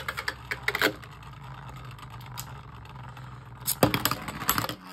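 Beyblade spinning tops clattering against each other and the plastic stadium: rapid plastic rattling at first, then a steady whir while they spin, and a burst of sharp plastic clicks and knocks about four seconds in.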